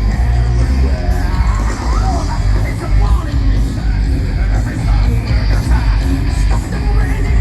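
Loud rock or heavy-metal style music with a sung voice over heavy bass, played over the show's sound system.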